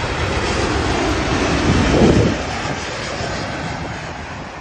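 Jet airliner's engine rumble, swelling to a peak about two seconds in and then easing off.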